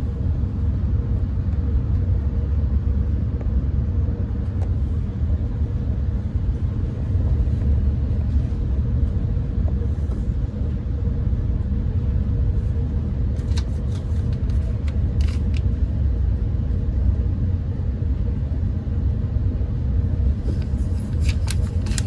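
Steady low rumble of a moving Amtrak Pacific Surfliner passenger train, heard from inside the car, with a faint steady hum over it. A few brief clicks or rattles come about two-thirds of the way through and again near the end.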